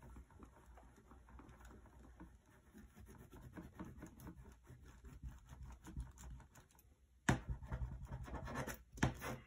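Spoon rubbed hard back and forth over paper laid on a linoleum block, a quiet fast scratchy rubbing that burnishes a pencil drawing onto the block. Louder knocks come about seven seconds in and again near the end.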